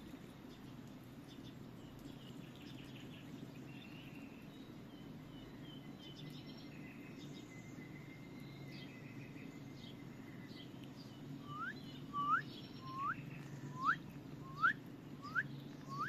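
Birds chirping, then from about two-thirds of the way in a bird repeats a short, rising whistled note roughly every 0.7 seconds, the loudest sound here.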